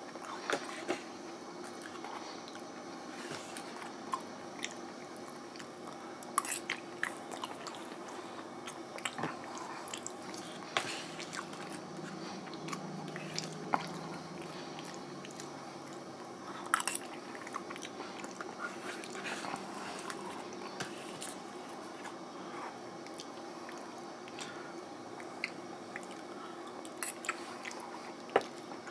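A person chewing a mouthful of microwaved sesame noodles with beef, wet mouth sounds broken by scattered sharp clicks, over a steady low hum.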